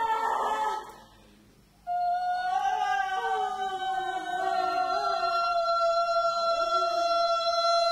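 Music of sustained, held tones with sliding pitches. It cuts out for about a second near the start, then a long steady high note comes in and holds, while other tones glide downward beneath it for a few seconds.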